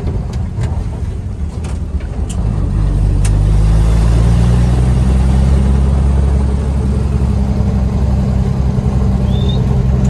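1967 Willys Rural's six-cylinder engine running while the vehicle drives, its note dipping and then climbing to a steady, louder level about three seconds in. A few sharp clicks and knocks come in the first three seconds.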